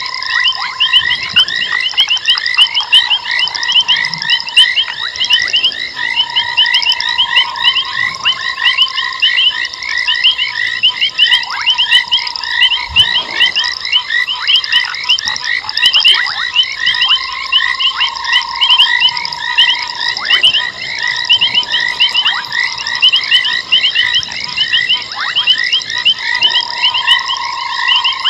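Dense frog chorus: many overlapping, fast pulsing calls repeat without pause, with long, steady, lower-pitched notes coming in every second or two.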